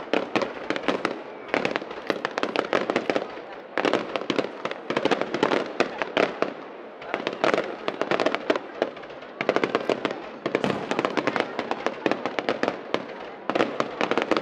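Aerial fireworks going off in rapid volleys of sharp pops and bangs. They come in clusters of about two seconds, with brief lulls between.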